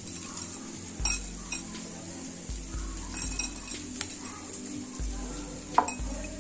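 Light clinks and knocks of glass as boiled potatoes are crumbled by hand in a glass bowl, over a steady sizzle of chopped onions frying in oil in a kadhai.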